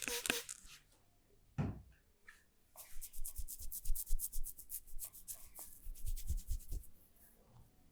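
Massage hands rubbing briskly over the client's skin, a fast run of short strokes of about ten a second lasting some three seconds, after a single dull thump.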